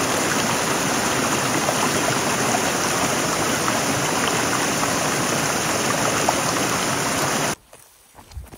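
Steady rush of running water, cutting off suddenly about seven and a half seconds in.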